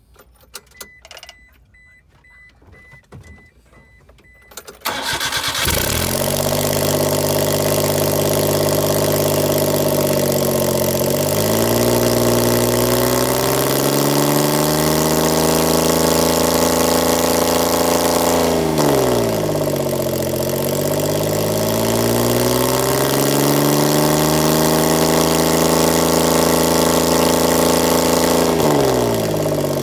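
A few faint clicks and a faint, evenly repeating high beep, then about five seconds in the Suzuki Carry DA63T's K6A three-cylinder engine cranks and starts. It then idles steadily, its speed dipping and recovering briefly about three times.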